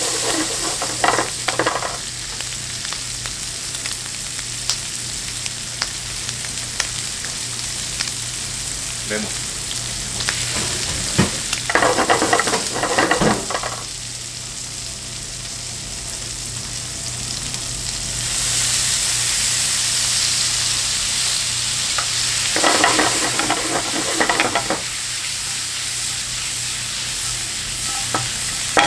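Food sizzling steadily in a hot frying pan, with three short bursts of stirring, about 1, 12 and 23 seconds in. The sizzle grows louder about 18 seconds in.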